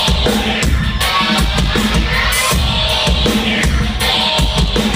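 Loud live noise-pop music from a band's PA, with a heavy, pounding drum beat repeating.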